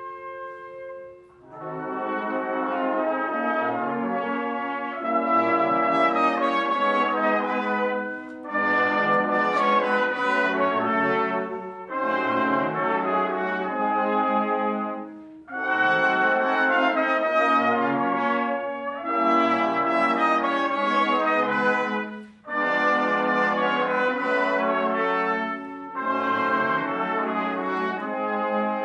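Wind orchestra playing loud, full brass chords in phrases, broken by short breaks, after a soft held note at the start.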